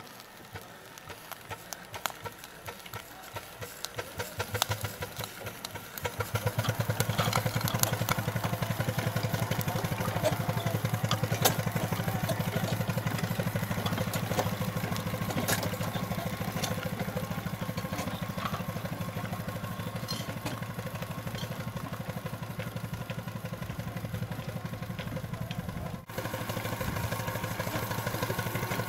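Live-steam scale-model Case traction engine chuffing from its stack: separate exhaust beats that quicken over the first few seconds, settling about six seconds in into a rapid, steady chuff with light mechanical clicking.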